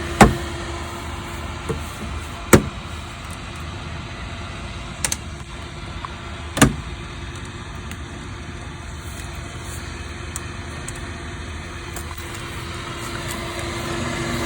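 A small electric cooling fan running with a steady hum and a faint constant tone, broken by four sharp clicks or knocks in the first seven seconds, one of them a quick double.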